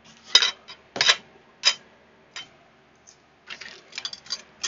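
Small hard objects clicking and clattering as they are handled and pushed about while someone searches through craft supplies: scattered sharp knocks, bunching into a quick run of clicks near the end.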